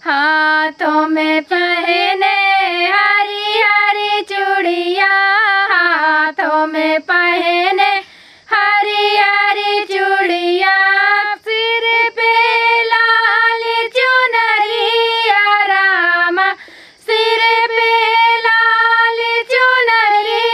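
Two women singing a Hiduli, a Vindhya-region folk song, in a high, ornamented melody with no instruments heard. The singing pauses briefly for breath about 8 seconds in and again near 17 seconds.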